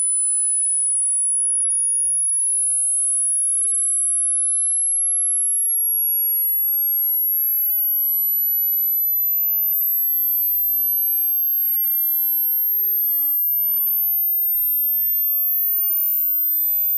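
A pure sine test tone climbing slowly and evenly in pitch from about 10 kHz to about 13.5 kHz: a high-frequency hearing-test sweep that checks how high the listener can still hear.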